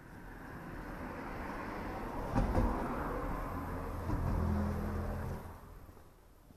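A motor vehicle passing on a road: its engine and tyre noise swells over a few seconds, with a low engine hum and a brief clunk about two and a half seconds in, then fades away near the end.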